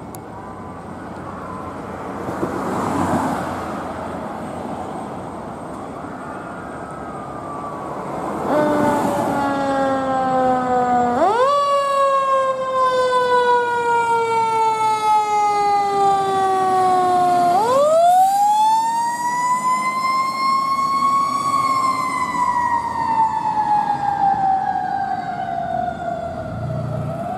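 Fire engine siren, heard from the roadside: after two brief rushes of noise in the first third, the siren comes on, jumps up in pitch and slides slowly down, jumps up again and slides down, then winds up over a few seconds and slowly falls away.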